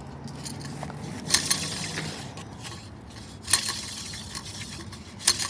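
Sharp clinks and knocks of the broken plastic and glass pieces of a smashed light-socket ceiling fan, with three louder clinks about a second and a half, three and a half and five seconds in.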